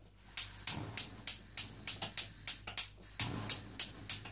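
Gas hob's electric spark igniter clicking, about three sharp ticks a second, as a burner is lit for the lowest flame.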